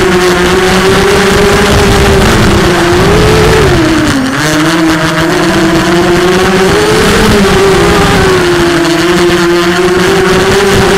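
Brushless motors and propellers of a 250-size FPV racing quadcopter (Cobra 1960kv motors) whining, as picked up by its onboard camera. The pitch rises and falls with the throttle, dropping sharply about four seconds in and again about eight and a half seconds in before climbing back.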